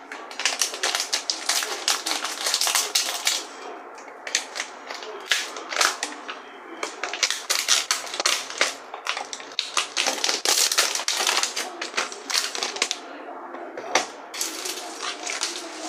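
Plastic wrap crinkling and crackling in rapid, irregular bursts as it is handled, snipped with scissors and peeled off a bowl.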